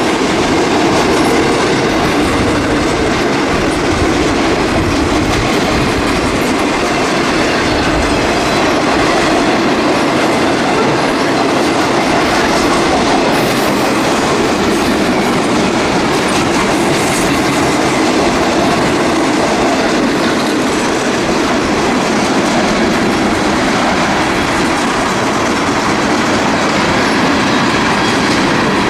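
Freight train cars rolling steadily past, wheels clicking and clacking over the rails.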